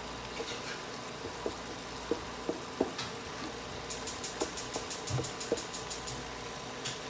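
Broccoli and garlic sizzling gently in a stainless steel frying pan while a wooden spatula stirs them, knocking against the pan at irregular moments. A fast run of faint high ticks starts about four seconds in.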